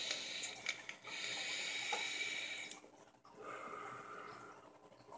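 Long hissing draw through a Horizon Arctic dual-coil sub-ohm vape tank, in two pulls over about three seconds, with a few faint pops. Then a softer breathy exhale of vapour.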